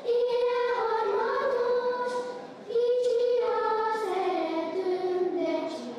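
A group of children singing one melody together, in held notes with a short breath a little before halfway, the tune stepping down toward the end.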